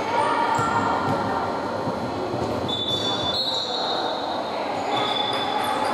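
Rubber-soled basketball sneakers squeaking on a hardwood gym floor: several short, high squeaks, the longest about a second long near the middle, over a din of voices in a large echoing sports hall.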